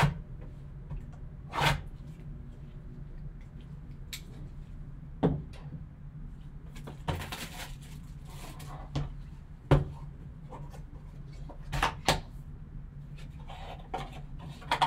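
Black-gloved hands handling and opening a cardboard trading-card box: scattered knocks, taps and scrapes of cardboard, with a longer rustle of the box being opened about seven seconds in. A low steady hum runs underneath.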